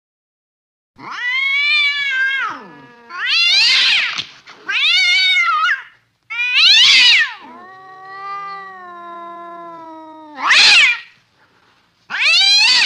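Cats meowing loudly: six drawn-out meows that rise and fall in pitch, with one long, lower, steady moan in the middle. The last meow comes from a kitten.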